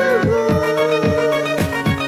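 Karaoke backing track: a long held melody note over steady chords and a regular drum beat.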